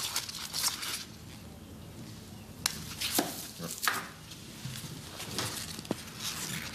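Close handling noises: rustling of straw, then several sharp clicks and knocks of a small metal tool such as pliers being worked.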